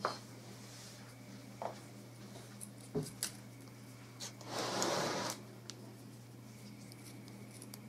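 Light handling sounds of crafting materials on a table: a few soft clicks, then a brief rustle about five seconds in. A steady low hum runs underneath.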